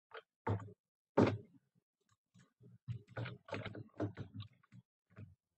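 A person's voice close to the microphone: soft, indistinct muttering and mouth sounds in short snatches, busiest between about three and five seconds in.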